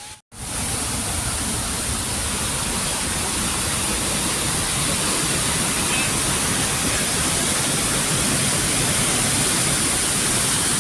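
Steady, loud rush of falling water, even and unbroken, starting and stopping abruptly at cuts.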